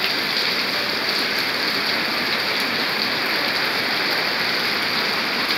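Heavy rain falling on a wet paved street: a steady hiss with scattered drop splashes.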